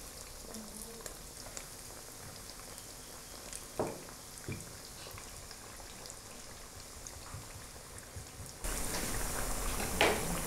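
Pinwheel samosas deep-frying in a wok of oil: a steady sizzle with fine crackling pops. A couple of short knocks come about four seconds in. Near the end the sizzle turns suddenly louder and is followed by a sharp metallic clack as the fried pieces are lifted with a mesh skimmer.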